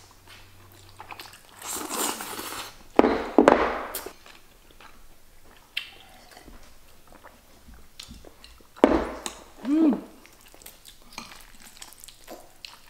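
Close-up eating sounds: black bean noodles being slurped and chewed, with a few loud slurps a couple of seconds in and again near the end.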